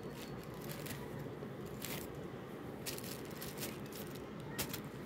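A few short crinkles and rustles of plastic sheeting and leaves as a sock is handled and its leaf prints peeled off, over a steady low background noise.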